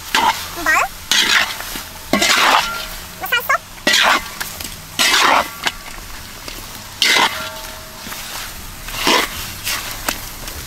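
Metal spatula scraping and turning sauce-coated pig head pieces in a wok, in strokes every second or two, with the food sizzling underneath.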